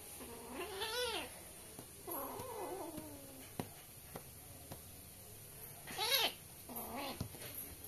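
Kittens mewing during a play-fight: about four short, high mews, the loudest about six seconds in, with a few soft clicks in between.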